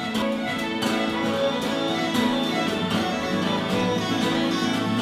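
Traditional folk tune on fiddles and guitar, with held fiddle notes over a steady strummed guitar beat.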